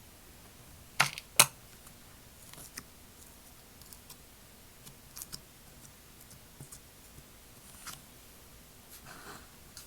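Slime being handled by hand: two sharp pops about a second in, then scattered faint clicks and crackles.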